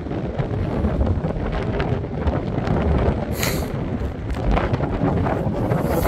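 Wind buffeting the microphone: a steady low rumble, with two brief higher hisses, one midway and one near the end.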